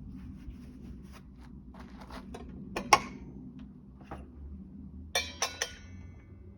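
Metal handling sounds as a new 10-inch steel saw blade is fitted onto a chop saw's arbor: small clicks and scrapes, a sharp knock about three seconds in, then three quick ringing clinks a little after five seconds.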